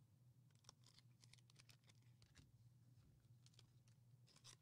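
Near silence: faint room tone with a few very soft scattered ticks.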